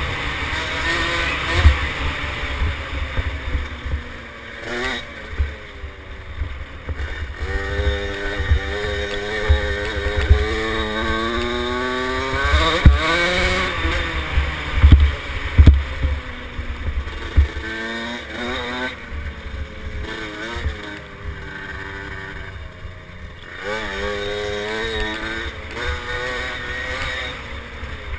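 Small two-stroke engine of a KTM 50 SX mini dirt bike revving up and falling back again and again as it is ridden, over a steady low buffeting rumble.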